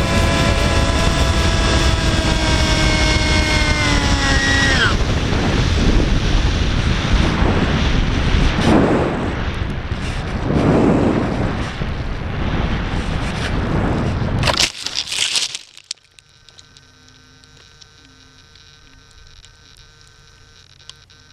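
Electric motor of an FPV fixed-wing RC plane whining at high throttle, its pitch sagging before it cuts out about five seconds in, a sign of the overworked motor failing. A loud, rough rushing noise follows for about ten seconds and stops abruptly, leaving a faint hum.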